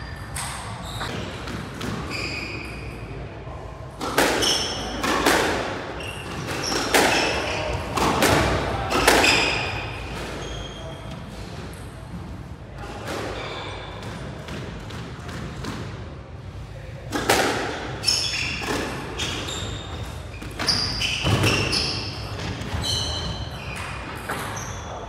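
Squash rally in a glass-backed court: the ball smacks off rackets and walls in quick runs of hits, with short high squeaks of court shoes on the wooden floor between them. There is a lull of fewer hits midway.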